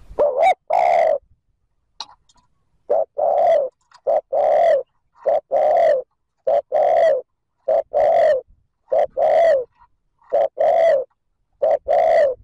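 Spotted dove giving rapid 'thúc gù' coos. Each phrase is a short note followed by a longer one, repeated about nine times at roughly one phrase a second.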